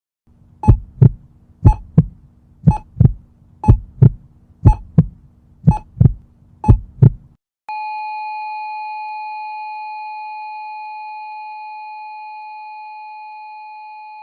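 Heartbeat sound effect: seven double thumps about a second apart over a low hum. Then, about halfway through, it gives way to a heart monitor's flatline, one long steady beep that slowly fades.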